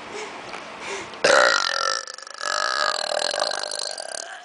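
A person's long, loud burp. It starts suddenly about a second in and runs for about three seconds, breaking into a short stuttering rattle near the middle before trailing off.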